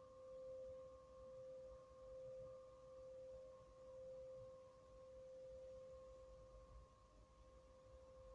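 Crystal singing bowl giving a soft, steady, pure ringing tone with a faint higher overtone, swelling and fading gently about every two seconds as it is kept sounding.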